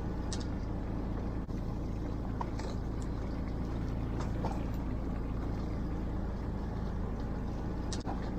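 A fishing boat's engine running steadily, with a few faint clicks and taps over it.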